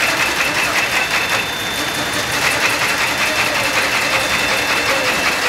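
Factory machinery running with a fast, even clatter. The clatter drops out for about a second, about a second and a half in, and then picks up again.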